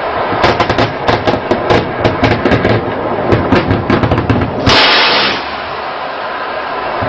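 Machine gun firing in rapid, irregular bursts of sharp shots, several a second, stopping just before five seconds in. A brief loud rush of noise follows, then a steady rushing background.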